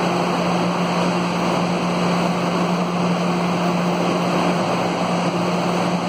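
Metro train standing at the platform with its doors open, its on-board equipment running: a steady hum under an even rushing noise.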